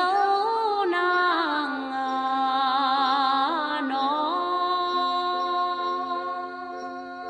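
Closing of a Tày Then folk song: a woman's voice draws out a sung vowel that glides up and down over the accompaniment, then settles into long held notes that slowly fade out.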